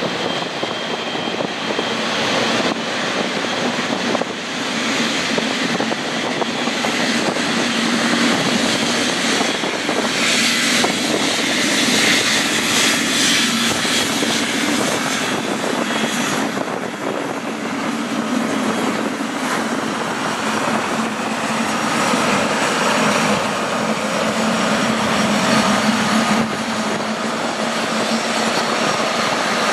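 Jet engines of a Boeing 777-300ER (GE90 turbofans) running with a continuous roar, a low steady hum and a thin whine, as the airliner rolls out on a wet runway after landing and then taxis. The roar grows hissier and louder about a third of the way in before easing off.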